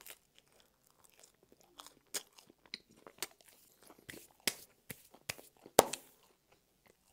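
Close-miked chewing of a pizza crust: soft crunches and wet mouth clicks. In the second half, hands rub and brush together to wipe off crumbs, with a sharp smack a little before the end, the loudest sound.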